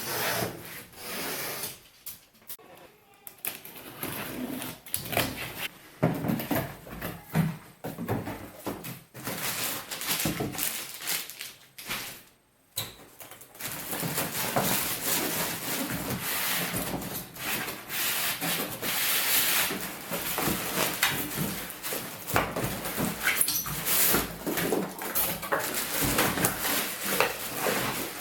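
Cardboard box and packaging being handled and opened: irregular rubbing, scraping and knocking, with a brief pause about twelve seconds in.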